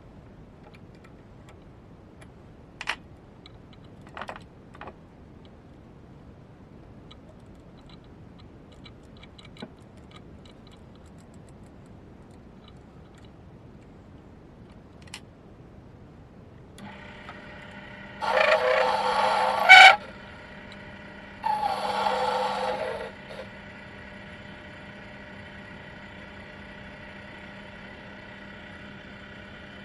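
A few light metal clicks from the lathe's toolpost being set with a hex key. A little over halfway through, the Proxxon PD 250/E mini lathe's motor starts and runs with a steady whine. Over it come two loud, harsh scraping passes of about a second and a half each, the tool cutting the stainless steel bolt.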